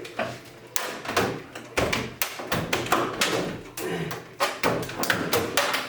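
Irregular knocks and clunks of a microwave oven door being wrenched back and forth on its hinges to break it off, about a dozen sharp impacts.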